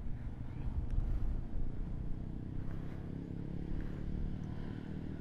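Motorcycle engine running steadily at low revs, a low, even rumble.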